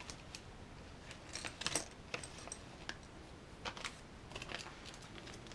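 Small plastic RC transmission parts clicking and rattling as they are handled and set down on the workbench, with a clear plastic parts bag rustling. The taps come in scattered little clusters.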